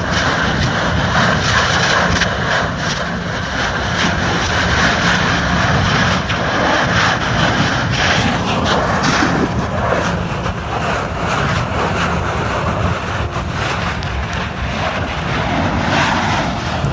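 Kilauea lava fissure erupting: a loud, steady jet-turbine-like rushing noise with many small crackles running through it.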